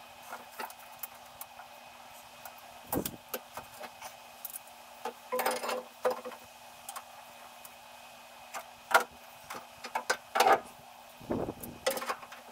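Scattered knocks and clatter, about a dozen short hits at uneven intervals, some ringing briefly, over a faint steady hum.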